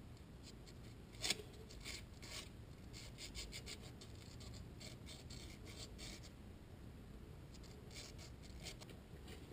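Sandpaper rubbing on a metal brake part by hand, in bursts of short quick strokes, with the sharpest scrape about a second in. Only the edges are being lightly scuffed, not the middle of the surface.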